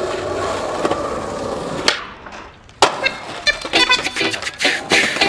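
Skateboard wheels rolling on asphalt, a click about two seconds in, then a loud slam about three seconds in as the skater falls, followed by the board clattering and scraping on the ground.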